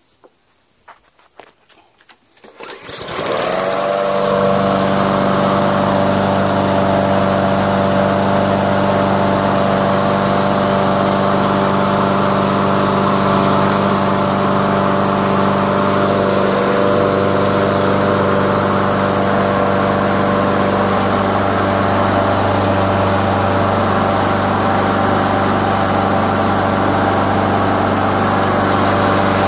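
Troy-Bilt walk-behind mower's small Honda four-stroke engine starting about three seconds in after a few light clicks, then running at a steady speed.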